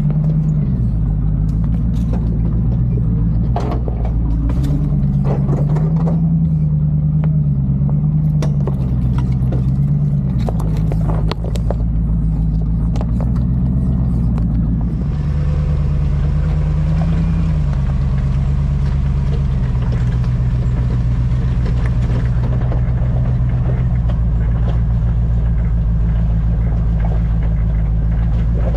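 Land Rover Discovery engine running at low speed as it crawls over a rocky dirt trail, its pitch rising and falling with the throttle. Frequent sharp knocks and clicks of rocks and branches against the truck come through the first half, and an even hiss joins the engine from about halfway.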